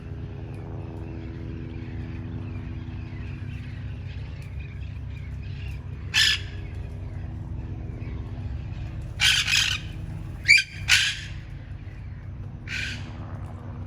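Red-crowned parrots squawking: harsh calls about six seconds in, a quick cluster of four around nine to eleven seconds in, and one more near the end, over a steady low hum.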